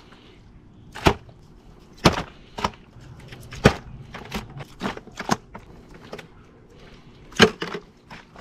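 Knife cutting raw octopus into sections in a disposable aluminium foil tray: about eight sharp, irregular taps and knocks as the blade and pieces strike the foil tray. The loudest taps come a second in, around two seconds in and just after three and a half seconds, with a last one near the end.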